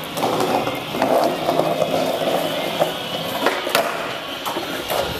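A cheap ten-euro skateboard rolling over stone paving slabs: a steady rolling rumble with a few sharp clacks in the second half.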